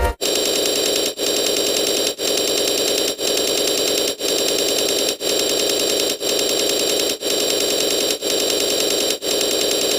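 Loud, harsh buzzing static, broken by a brief gap about once a second, ten times over.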